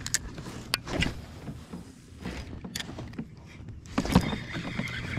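Scattered sharp knocks and clicks of fishing gear being handled on a plastic fishing kayak, over a faint low steady hum. The knocks come a few at a time, with a louder, busier stretch near the end.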